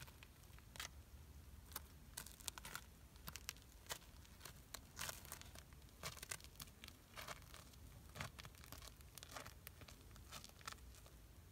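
Near silence, with faint, irregular crackles and clicks scattered throughout over a low background rumble.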